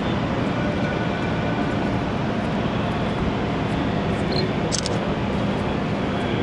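Steady low rumble and hum of cruise-ship machinery (engines and ventilation) in port, with a brief high squeak about four and a half seconds in.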